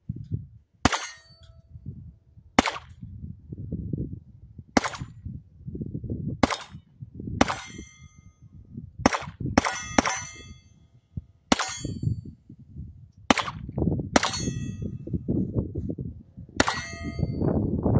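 Kel-Tec CP33 .22 LR pistol fired about a dozen times at an uneven pace, sharp cracks each followed by a short metallic ring.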